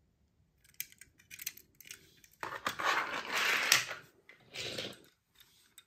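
Toy cars clinking and rattling against each other as hands rummage through them, with a longer stretch of rustling about halfway through.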